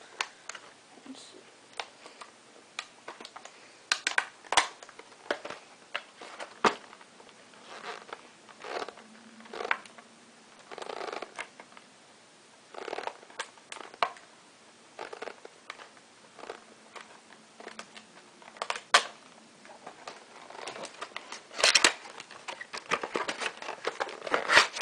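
Packaging being opened and handled: scattered clicks and crinkling of plastic and card, coming in short irregular bursts that grow busier near the end.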